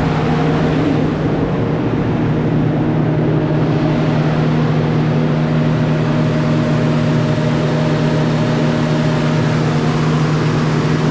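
Gardner Denver EBMQLC 75 HP rotary screw air compressor running, a loud steady drone with a low hum, pumping air into a receiver tank.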